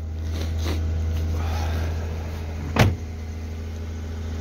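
Hyundai Santa Fe Classic's V6 idling steadily just after a cold start in −32 °C frost. A car door shuts with a single sharp thud about three seconds in.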